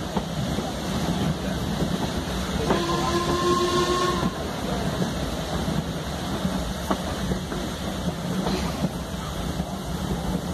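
A steam-hauled train running, with a steady rumble of the carriage on the rails. A locomotive whistle sounds once, about three seconds in, held for about a second and a half.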